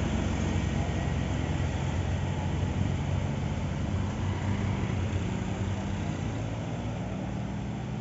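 A large road vehicle's engine running steadily with road noise, gradually fading toward the end.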